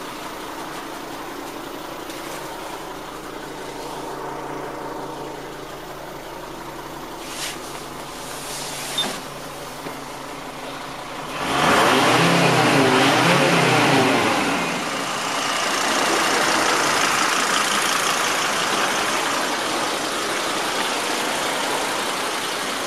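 The five-cylinder turbodiesel engine of a 1998 Mercedes Sprinter 312D, idling steadily with a few small clicks. About halfway through it grows much louder for about three seconds with a wavering pitch, then runs on steadily at a higher level.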